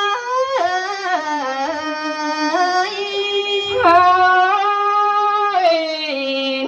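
A solo voice singing a Thái folk song, drawing out long held notes with sliding, ornamented turns between them.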